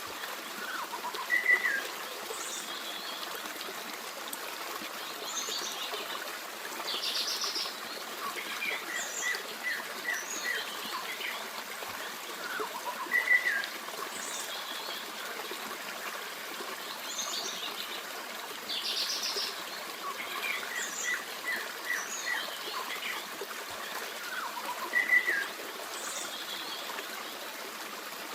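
A forest stream babbling steadily while several songbirds chirp and trill over it. A few sharp, louder chirps stand out, along with two buzzy trills, and the same run of bird calls comes round again about every 12 seconds.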